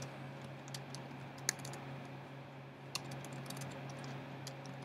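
Quiet computer keyboard typing: a few scattered key clicks, then a quicker run of keystrokes from about three seconds in, over a faint steady low hum.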